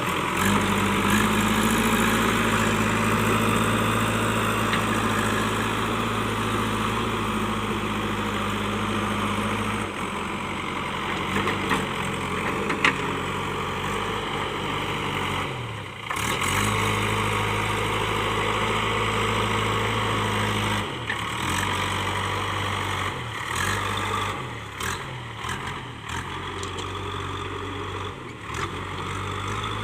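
Diesel engine of a JCB 3DX backhoe loader running steadily under work, its pitch and level shifting abruptly about ten, sixteen and twenty-one seconds in and wavering unevenly over the last several seconds.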